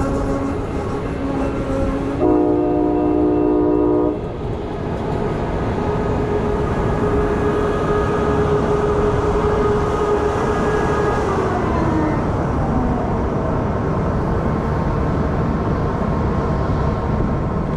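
Passing train with a steady rumble throughout. About two seconds in, a loud multi-note train horn sounds for about two seconds. A quieter held tone follows and slides down in pitch about eleven seconds in.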